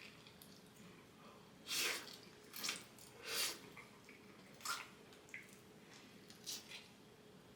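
Short wet dripping and squishing sounds from food preparation, about five separate bursts, the loudest about two and three and a half seconds in.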